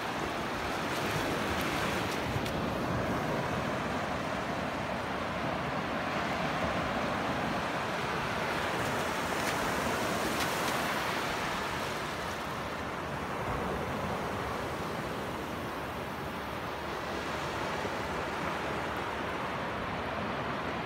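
Sea surf washing onto a sandy beach: a steady rush of noise that slowly swells and eases, with some wind on the microphone.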